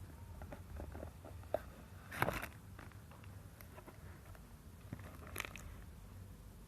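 Hands handling packaging and the mould during an unboxing: a run of small clicks and taps, with two short, louder crinkles about two seconds in and again about five and a half seconds in.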